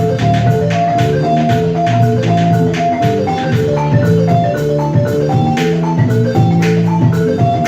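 Balafon playing a fast, repeating melodic pattern, with steady low notes and regular percussion hits underneath in a live band.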